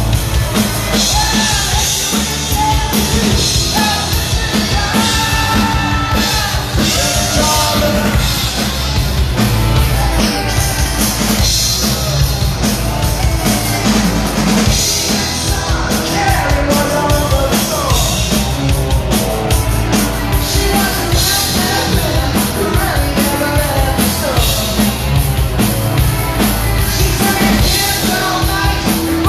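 A rock band playing live at full volume: a drum kit keeping a steady beat under electric guitars, with a man singing the lead vocal.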